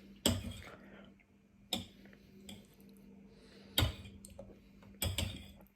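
Close-miked eating sounds of a person eating noodles and rice cakes: four sharp clicks or smacks, one every second or two.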